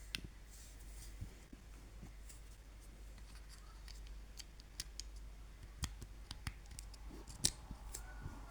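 Irregular clicks of a Samsung SGH-E330N mobile phone's keypad buttons being pressed, about a dozen spread over several seconds, with the loudest one near the end. Right at the end, a melodic tone begins from the phone's speaker as the next ringtone starts.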